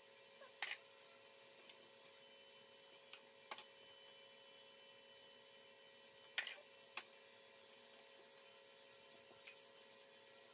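A handful of short, sharp clicks from a ratchet wrench and socket working the water pump bolts, some coming in quick pairs a second or two apart, over a faint steady hum.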